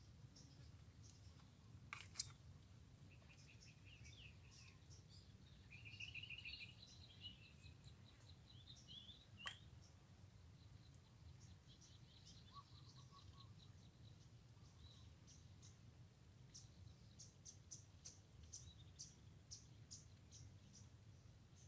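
Faint songbirds chirping and trilling, with short high chirps throughout. Two sharp clicks stand out, one about two seconds in and one near the middle, over a steady low rumble.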